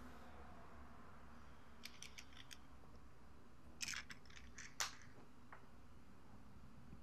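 Blister pack of tablets being handled and pressed: a few light plastic clicks about two seconds in, then a louder burst of foil and plastic crackling with a sharp snap near the middle. A low steady room hum lies underneath.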